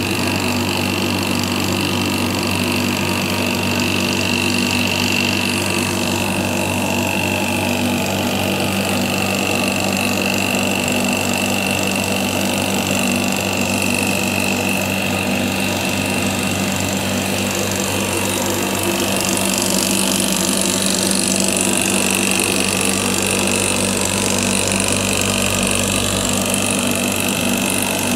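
Damp-proof-course injection pump running steadily, a constant hum with a high whine, forcing injection fluid under pressure through brass lances into the brickwork.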